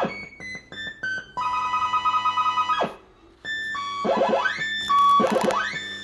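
Bell-Fruit Two Step fruit machine's electronic sound effects: a quick run of short beeps stepping down in pitch, a steady held chord for about a second and a half, then after a brief gap, warbling tones sweeping up and down.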